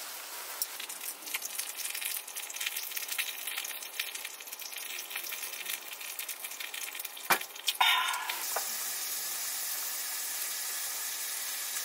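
Pork belly sizzling and crackling as it fries on a grill, with a sharp knock about seven seconds in; the sizzle then settles into a steady hiss.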